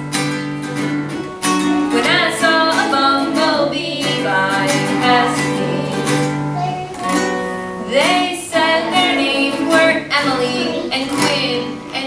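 A woman sings a children's song while strumming an acoustic guitar.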